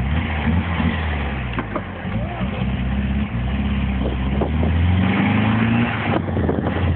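Apal buggy's engine running as it drives along, with road and wind noise; its pitch climbs steadily as it accelerates in the second half, then eases near the end.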